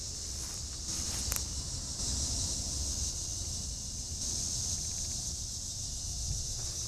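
Steady high-pitched chorus of insects, with a low rumble of wind on the microphone underneath.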